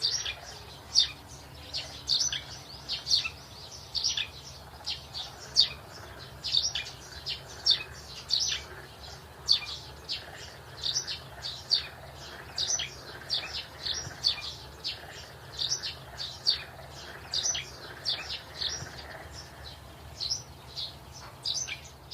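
Small birds chirping: a rapid, continuous run of short, sharp chirps, two or three a second, over a faint low hum.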